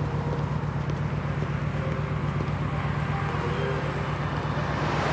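Steady city street traffic noise from passing cars, with one vehicle swelling louder as it goes by near the end.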